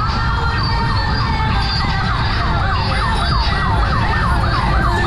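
Police siren in fast yelp mode: a rapid rising-and-falling whoop repeating about four times a second, over a steady low rumble.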